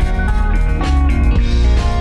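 Rock music: guitar over strong bass and drums.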